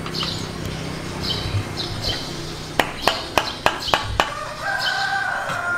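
Small birds chirping over and over. About three seconds in comes a quick run of some seven sharp clicks from pliers gripping a blue PVC pipe fitting. Near the end there is a longer held call with several pitches.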